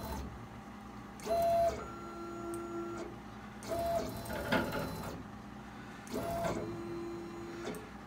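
The gantry stepper motors of a CO2 laser cutter whine as they drive the laser head across the bed and back. The head moves in several short runs, each a steady tone that starts and stops abruptly, with the pitch changing between runs and brief pauses in between.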